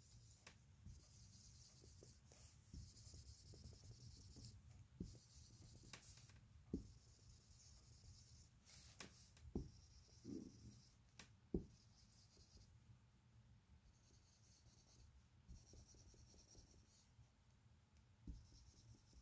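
Faint scratchy rubbing of a dry-erase marker scribbling colour onto a whiteboard. It comes in stretches of strokes with short pauses between them, and there are a few light clicks.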